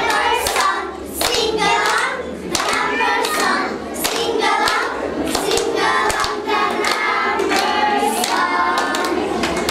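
A group of children singing together in chorus, with frequent hand claps.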